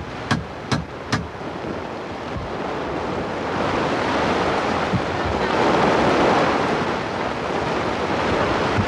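Plastic tarp shelter rustling and flapping in the wind, a steady rushing noise that swells about halfway through. It opens with a few sharp taps, about two a second.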